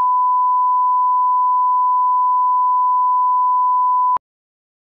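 Steady 1 kHz broadcast line-up tone, the reference tone that plays with television colour bars, cutting off abruptly about four seconds in.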